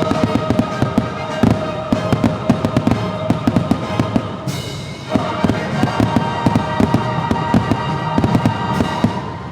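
Fireworks bursting, many sharp bangs in quick succession over the show's music, easing briefly about halfway through.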